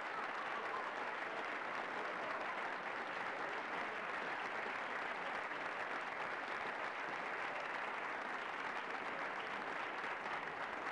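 Large crowd applauding steadily, a dense even wash of clapping.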